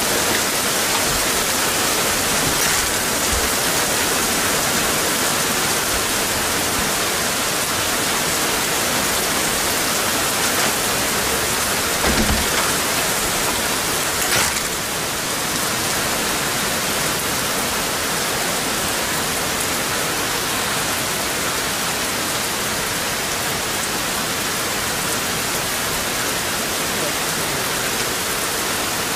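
Steady rain falling in a thunderstorm, a dense even hiss, with a short low thump about twelve seconds in.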